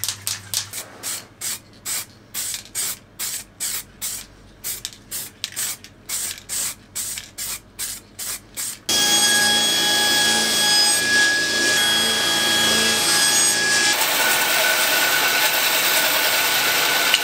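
Aerosol spray-paint can being shaken, its mixing ball rattling in even strokes about two to three times a second. After about nine seconds this gives way suddenly to a steady hiss with a few thin whistling tones, and near the end to a band saw running and cutting a strip of walnut.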